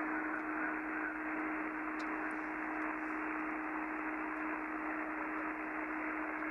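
Icom IC-7300 transceiver receiving SSB on the 40-metre band: a steady hiss of band noise from its speaker, cut off sharply above about 3 kHz by the receive filter, with a steady low tone under it and no voice coming through.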